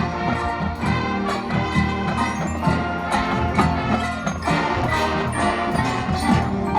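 Marching show band playing: sustained wind chords with ringing mallet percussion and frequent percussive strikes over them.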